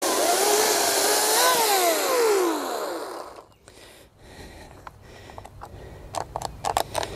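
Ryobi 40V 14-inch battery chainsaw running in a log, then its motor winding down: the pitch falls steadily from about a second and a half in until the saw stops near three seconds. The operator takes this for the battery going flat. A few light clicks and knocks follow.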